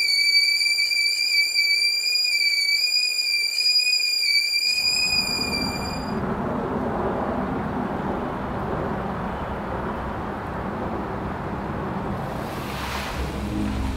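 Film sound design: a steady, high-pitched ringing tone that stops about six seconds in. From about five seconds in it gives way to a dense rushing noise, with a brief high hiss swelling near the end.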